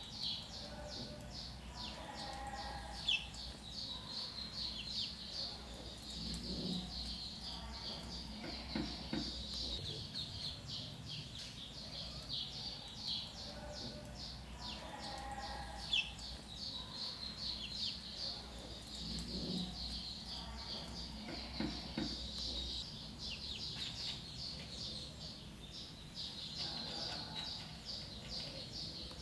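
A group of ducklings peeping continuously, many short, high peeps a second overlapping one another.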